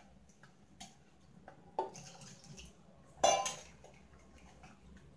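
Ladle stirring thin rava dosa batter in a stainless steel pot: faint stirring and scraping, with a couple of knocks of the ladle against the pot, the loudest about three seconds in.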